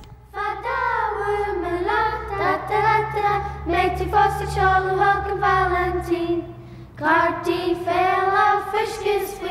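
A group of children singing a song together in long held notes, with a short break about seven seconds in.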